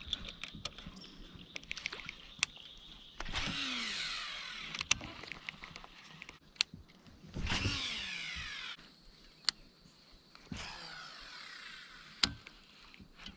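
Fishing reel whirring on casts, three times, each starting suddenly and falling in pitch as the spool slows, with sharp clicks and ticks of the reel and rod in between.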